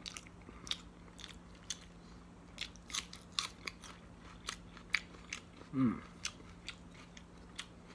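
Close-up chewing of rice and curry eaten by hand, with many sharp, irregular wet mouth clicks. There is a brief hummed 'mm' about six seconds in.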